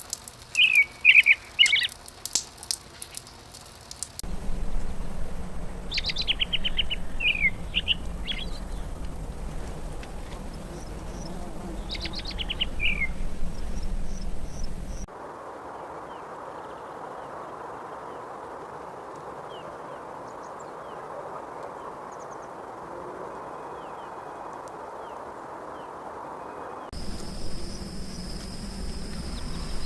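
Small songbirds chirping, with short rapid trills and quick calls, loudest in the first half; fainter calls follow over a steady background hiss. The background changes abruptly three times where separate recordings are spliced together.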